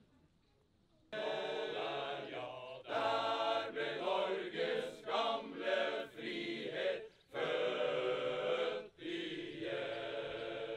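Male voice choir singing, starting about a second in, with short breaks between phrases.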